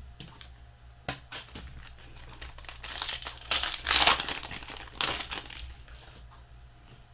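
A trading card pack wrapper being torn open and crinkled. It starts with a few light clicks of handling, swells into a loud crinkling rustle in the middle, and fades about five and a half seconds in.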